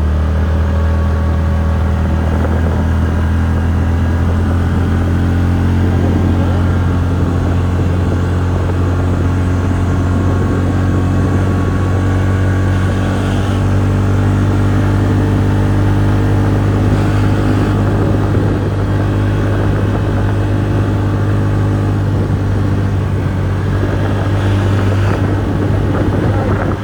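TVS Ntorq 125 scooter's single-cylinder engine running at a steady, even pitch.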